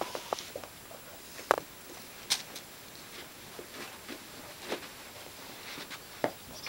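Bedlington terrier scrabbling under a bed for a ball: faint scuffling on carpet with a few short, sharp clicks and knocks scattered through it.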